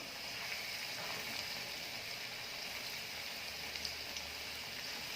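Floured cauliflower florets frying in hot oil in a pan: a steady sizzle with faint crackles.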